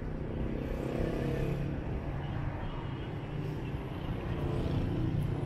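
Street traffic in heavy rain: vehicles passing on a wet road, with one engine passing about a second in, over a steady wash of rain.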